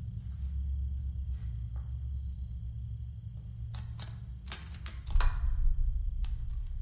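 Horror-film suspense sound design: a steady low drone under a constant high-pitched whine, with scattered soft taps and clicks like footsteps on a tiled floor. A sudden low hit lands a little after five seconds in and is the loudest sound.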